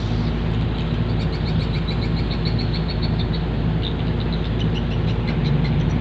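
Landing craft's engine running at a steady drone, with quick, high chirps repeating over it.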